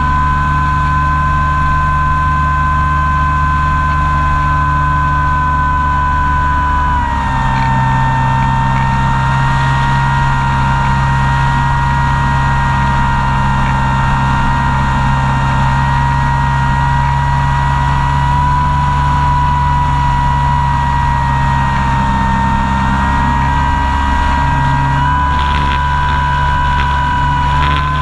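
Radio-controlled model airplane's motor and propeller running steadily in flight, with a steady whine over a low hum. The pitch drops slightly about seven seconds in and rises back near the end.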